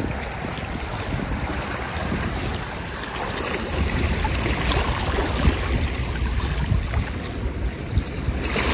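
Small waves lapping and washing over low rocks at the water's edge, with wind rumbling on the microphone.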